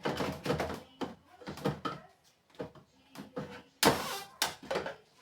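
Irregular knocks and clatter of food containers and fridge parts being handled as a refrigerator is emptied, with one loud bang a little under four seconds in.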